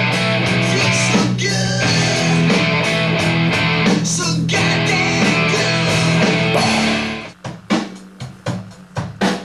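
Hard rock music with distorted electric guitar and drums, which stops abruptly about seven seconds in. After that come separate drum-kit hits, a few a second.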